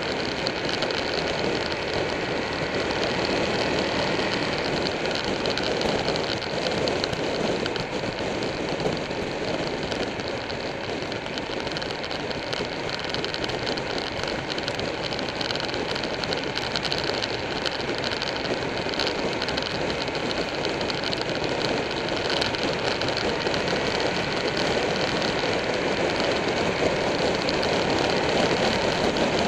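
Buell 1125R motorcycle with its V-twin engine running steadily at highway cruising speed. Wind rushes over the microphone along with road noise.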